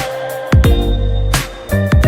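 Electronic background music with a heavy bass line, a held synth melody and a steady beat.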